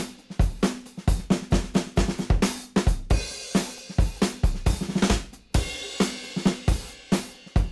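Background music: a drum kit playing a busy beat of rapid, evenly spaced kick, snare and cymbal hits.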